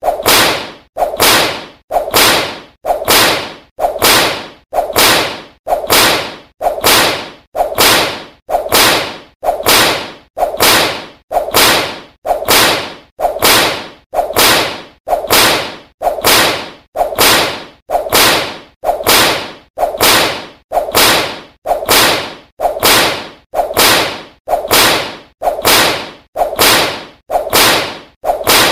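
A whip lashing over and over at a steady pace, a little more than one crack a second, each crack sharp and fading quickly.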